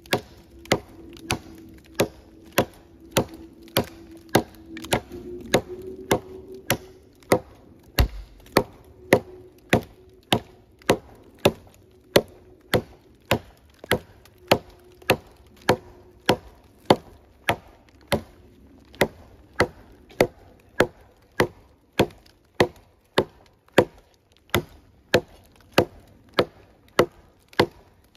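A large chopping knife striking a fallen log again and again, each blow a sharp chop into the wood, in a steady rhythm of roughly three chops every two seconds.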